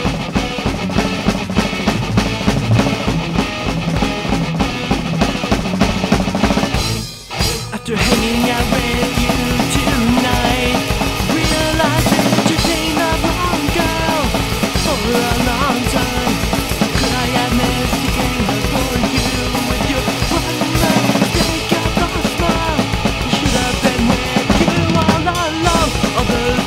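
Melodic pop-punk band recording with a driving drum kit. The band cuts out briefly about seven seconds in, then comes back in at full level.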